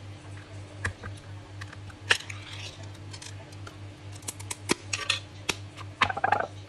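Scattered light clicks and taps of tableware being handled, with a sharper click about two seconds in and a quick run of clicks near the end.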